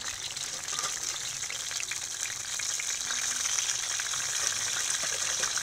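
Chicken legs frying in hot oil in a stainless steel pan: a steady sizzle with scattered small crackles.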